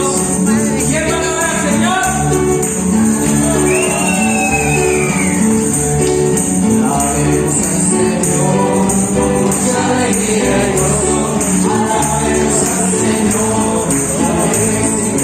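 Lively praise music with a tambourine shaking and voices singing.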